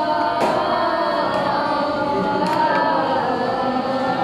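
A group of teenage girls singing a Filipino song together, with long held notes.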